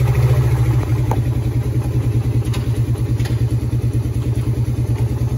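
Suzuki Satria FU 150's single-cylinder four-stroke engine idling steadily, with a fast, even exhaust pulse.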